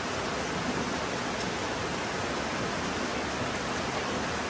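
Steady rain falling on grass and ground, an even hiss.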